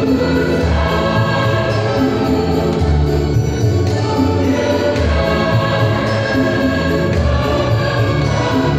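Church choir singing a gospel song in parts, with an accompaniment that carries a low bass line moving under the voices.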